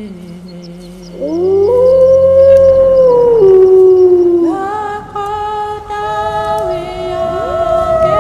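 Wolves howling: one long howl swoops up about a second in, holds, then drops lower. From about halfway several howls overlap in chorus, one of them gliding upward near the end.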